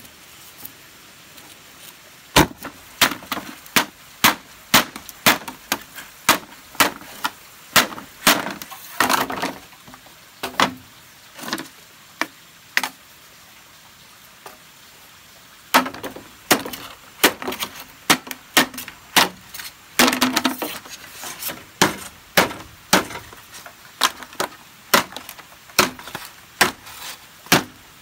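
Bamboo being chopped: sharp, crisp strikes at about two a second, stopping for a few seconds in the middle, then going on.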